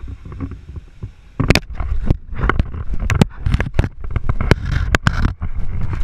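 A crocodilian biting down on a camera: a series of irregular sharp knocks and clacks as its teeth and jaws work on the camera body, over a low rumble of handling noise. The knocks begin about a second and a half in.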